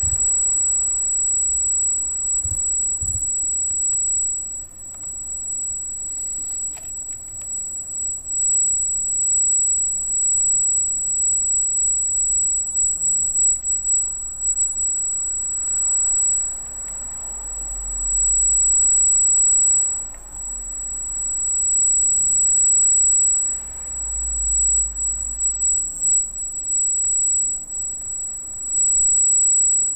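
Arris CM2000 brushless gimbal's motors giving off a steady, very loud high-pitched whine, a noise the setup itself makes. A few low thumps near the start and low rumbles twice later sit beneath it.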